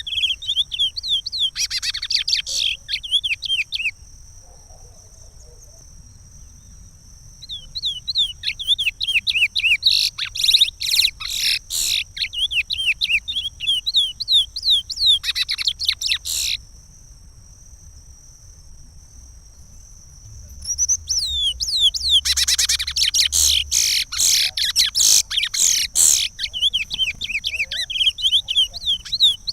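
Curió (chestnut-bellied seed finch) singing the Pará regional song type: long phrases of rapid, falling whistled notes, three bursts of song separated by pauses of a few seconds.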